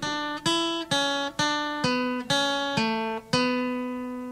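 Short guitar music sting: eight plucked chords about half a second apart, the last one left ringing.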